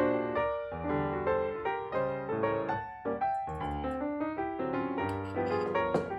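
Background piano music, a melody of short notes.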